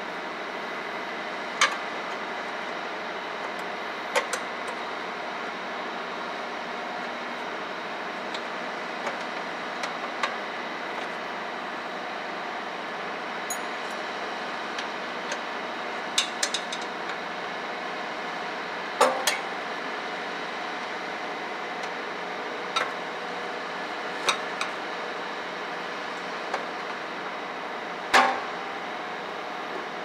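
Wrench clinking now and then on a fitting of a steel diesel tank, eight or so short sharp clicks spread through, over a steady mechanical hum.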